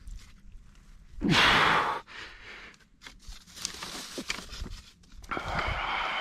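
A man's heavy sighing exhales of effort, one about a second in and a longer one near the end, over rustling and handling sounds as he pushes a wooden stake into the muddy edge of the pond.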